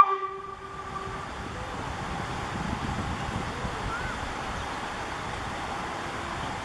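A steam locomotive's whistle, heard from a distance, holding one steady pitch and dying away within about the first second. After it comes a steady open-air rush of wind, with a faint short chirp about four seconds in.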